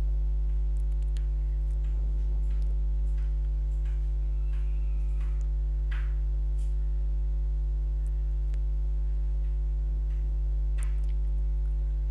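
Steady electrical mains hum with a ladder of overtones, with a few faint clicks scattered through it.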